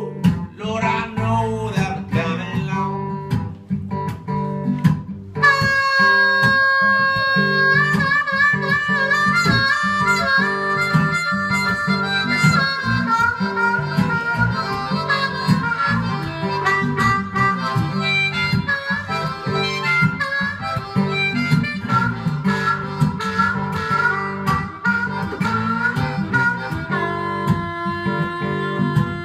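Instrumental break in a country-blues tune: acoustic guitar in open G tuning picking alone, joined about five seconds in by a harmonica playing long held notes and short phrases over the guitar.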